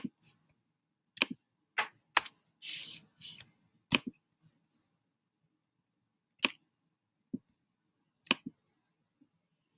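Computer mouse and keyboard clicking: about eight separate sharp clicks, several close together in the first four seconds, then spaced out. A brief rustle comes about three seconds in.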